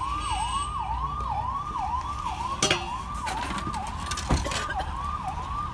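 An electronic siren-like tone, rising and snapping back down about three times a second, sounds on without a break. Two sharp metallic clanks cut in, about two and a half and four seconds in.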